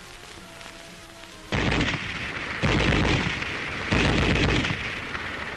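Three short bursts of automatic fire from a 9mm MP 40 submachine gun, starting about a second and a half in and spaced a little over a second apart, each dying away quickly. Faint background music before the first burst.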